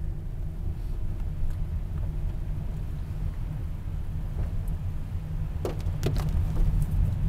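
Steady low rumble of a car's engine and tyres heard from inside the cabin while driving on a snow-covered road. A few brief clicks come near the end.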